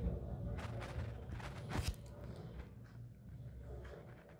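Quiet room tone: a faint, steady low hum with a few soft clicks, one at the start and one a little under two seconds in.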